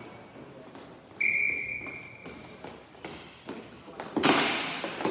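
Referee's whistle blown in one steady blast of about a second and a half, followed a few seconds later by a loud bang, the loudest sound here.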